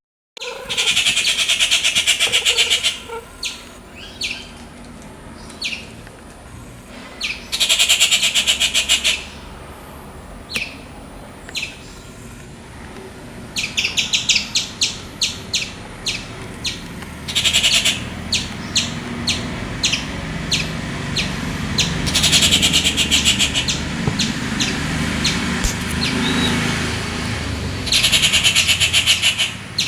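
Rufous treepie giving harsh, rapid rattling chatters in bursts of one to two seconds, about six times, with single sharp notes in between. A low rumble builds up in the background in the second half.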